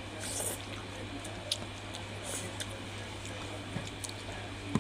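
Close-up eating sounds: wet chewing and slurping of a soupy dish, with a few light clicks of a spoon, over a steady low hum.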